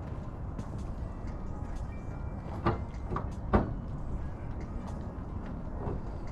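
Three sharp knocks or clinks of tools and parts at the front suspension of a car during a coilover swap, coming about halfway through over a steady low outdoor rumble.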